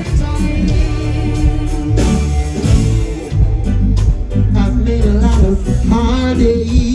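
Live reggae band playing with a strong bass line, drums and guitar, and a sung vocal line coming in during the second half.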